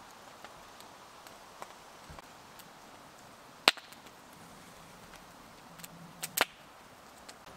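Campfire crackling, with scattered small snaps, one loud pop about halfway through and a quick pair of pops later on.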